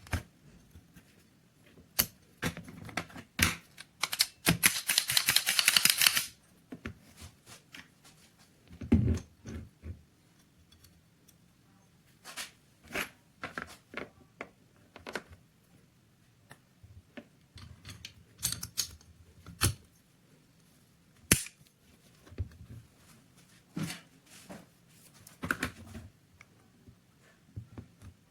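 Scattered sharp clicks and knocks of small metal pistol parts being handled and fitted, with a dense rattling stretch lasting about a second and a half near the start.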